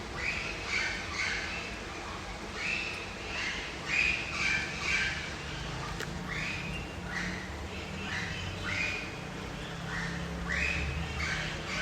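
Birds calling: short, high chirps, mostly in quick clusters of two or three, repeating throughout.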